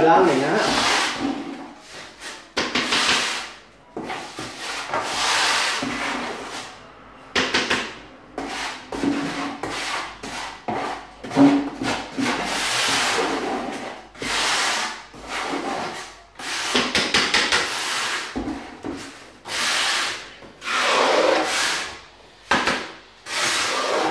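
A trowel scraping tile adhesive in a bucket, in a run of rasping strokes about a second or two each with short pauses and an occasional sharp click against the bucket.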